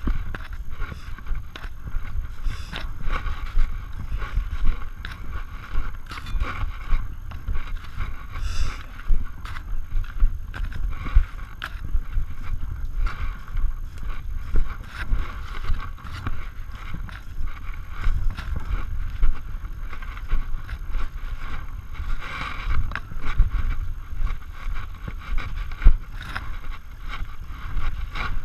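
Low, gusting rumble of wind and handling noise on the microphone, with scattered knocks, clicks and rustles.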